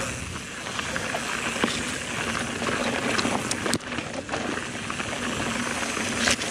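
Mountain bike descending a rocky trail at speed, heard from a GoPro on the rider: a steady rushing of wind and tyres over rock, broken by a few sharp knocks and rattles as the bike hits bumps.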